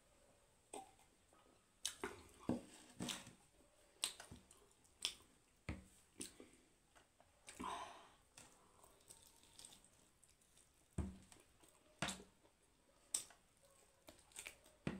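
A person chewing roast chicken in a quiet room, with irregular sharp mouth smacks and clicks.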